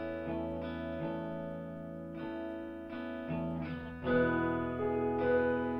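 Background music led by guitar, which gets louder about four seconds in.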